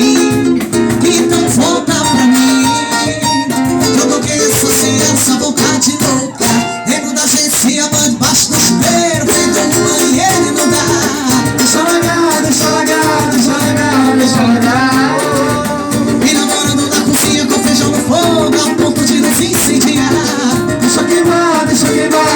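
A small band playing a Brazilian bar song: plucked guitar with a shaker keeping the rhythm, in a passage with no lyrics.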